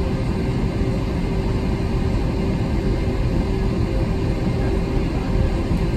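Cabin noise of an Airbus A321 taxiing on its IAE engines at low thrust: a steady low rumble with a steady hum through it.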